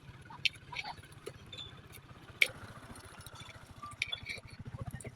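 Scattered light clicks and clinks of small hard objects being handled, with one sharper clink about two and a half seconds in, over a steady low hum.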